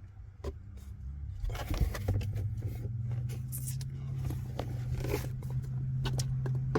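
Plastic interior trim parts clicking and knocking as they are handled and fitted back behind the glove box, over a steady low hum that comes in about a second and a half in.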